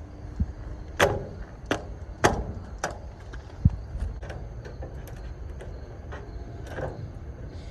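Handling noises from wrapping a car hood in vinyl: a handful of sharp clicks and knocks at irregular intervals, the loudest a little under four seconds in.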